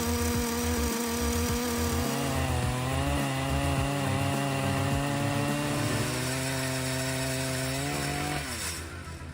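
Holzfforma G888 two-stroke chainsaw running at high revs, cutting through a large oak log, its pitch wavering slightly under load. Near the end the engine drops off and winds down.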